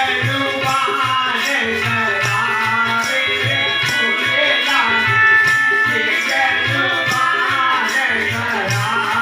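Devotional bhajan music, instrumental: a steady drum beat with a shaker-like rattle keeping time and a wavering melody line over it.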